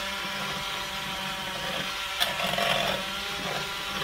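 Pampered Chef Flex+ cordless hand mixer running with its beaters in a bowl of cooked chicken breasts, shredding the meat; a steady motor hum with a sharp knock about two seconds in.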